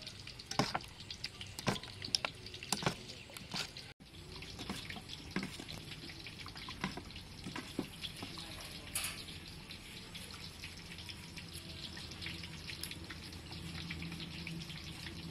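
A spoon clicks against a steel bowl and wet egg batter squelches as drumsticks are turned in it. About four seconds in, a steady sizzle with small crackles takes over: chicken drumsticks deep-frying in a wok of oil.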